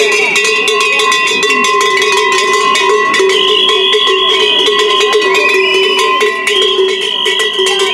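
Hand-held cowbells shaken without a break: a loud, fast, steady clanging with a constant ringing pitch.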